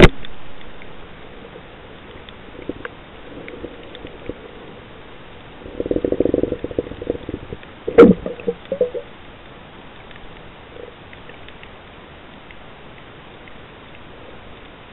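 Muffled underwater sound picked up by a submerged camera: a steady low hiss, with a sharp click at the very start, a loud crackling burst about six seconds in, and a sharp knock about eight seconds in followed by a few short crackles.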